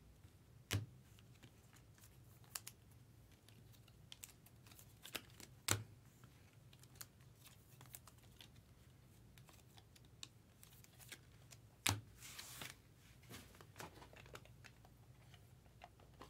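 Chrome trading cards clicking and sliding against one another as a stack is flipped through by hand: faint, irregular clicks, the loudest three about five seconds apart, with a short rustling slide near the end. A steady low hum sits underneath.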